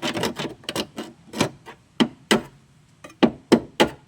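Irregular series of sharp taps and knocks, about a dozen, with a gap of about a second in the middle.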